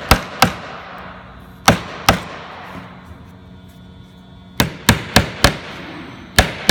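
A hammer tapping a plug down into a screw hole filled with instant adhesive, to repair a stripped hole in particleboard furniture. Nine sharp blows, each with a short ringing tail: two near the start, two more about a second and a half in, then a quicker run of five toward the end.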